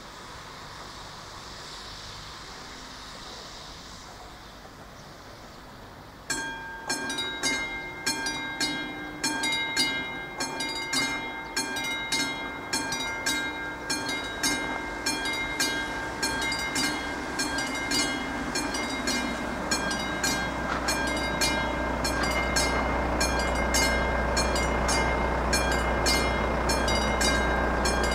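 Level-crossing warning bell (a classic mechanical bell on a VÚD crossing signal) starts about six seconds in, after a steady hiss, and rings on in rapid, even strikes as the crossing warns of an approaching train. From about two-thirds of the way through, the low rumble of the approaching train builds beneath the bell.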